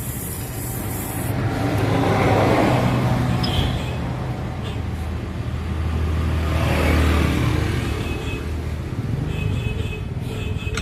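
Coarse sandpaper rasping against a Honda Scoopy's CVT clutch housing as the rear wheel is turned, to clean and roughen the surface. It swells twice, about two and seven seconds in.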